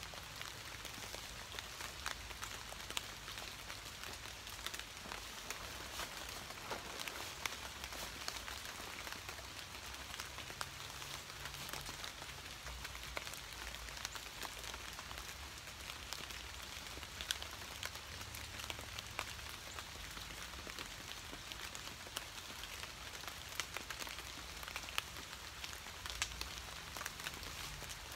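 Steady light rain falling, with individual drops ticking close by.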